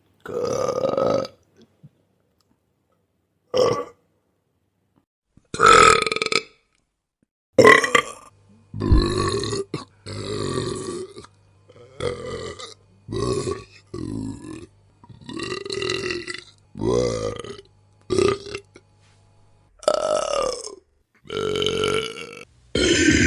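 A string of human burp sound effects, about fifteen separate burps of differing lengths with silent gaps between them. They come spaced out at first, then follow one another quickly from about eight seconds in.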